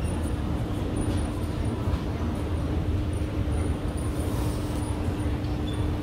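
Shop background noise: a steady low rumble with a constant hum.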